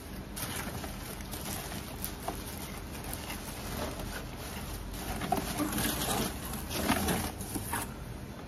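Crinkled brown kraft packing paper rustling as it is pulled and handled out of a box, busier and louder in the second half.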